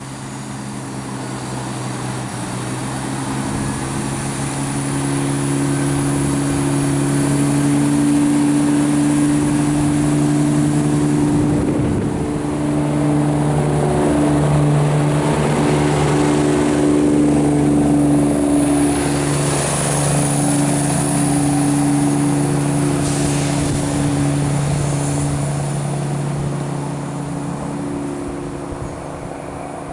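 Diesel passenger train's engine running with a steady hum, growing louder over the first several seconds, holding, then fading near the end as the train moves through the station.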